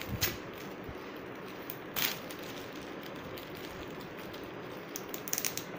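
Metallic foil gift wrap crinkling and tearing as a present is unwrapped: a few sharp crackles, the loudest about two seconds in and a quick cluster near the end, over a low background hiss.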